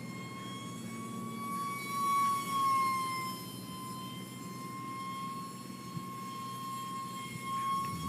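Electric ducted fan of an E-flite UMX Habu 180 DF ultra-micro RC jet whining steadily in flight. Its pitch wavers slightly and it swells louder about two seconds in.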